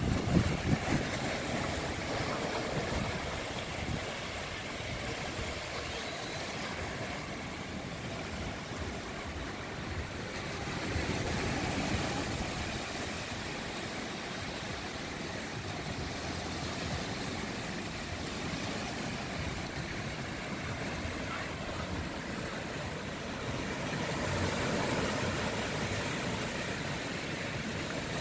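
Small ocean waves breaking and washing up a sandy beach, swelling louder twice as bigger waves roll in. Some wind buffets the microphone at the start.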